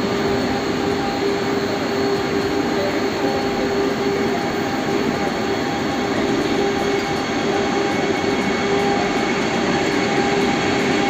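Vande Bharat electric train running, a steady rushing noise with a steady hum and whine held over it.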